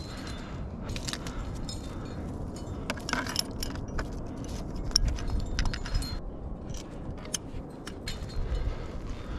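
Trad climbing rack of cams and carabiners clinking and jangling on the harness as the climber moves up the crack: many short, scattered metallic clinks over a low steady rumble.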